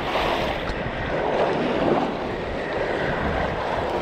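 Small surf waves washing up the sand, with wind noise on the microphone.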